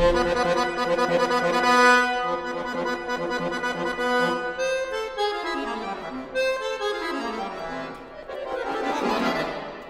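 Concert accordion playing a contemporary classical piece. A dense held chord comes first, then about halfway two fast runs of notes move in opposite directions, one falling and one rising. A swelling, grinding cluster builds near the end.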